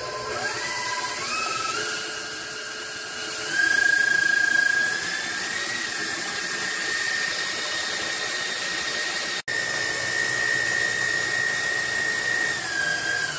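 Stand mixer whipping whole eggs with its wire whisk at high speed. Its motor whine steps up in pitch over the first few seconds as the speed is raised, then holds steady. It breaks off for an instant about nine seconds in, and the pitch starts to fall near the end as the mixer slows.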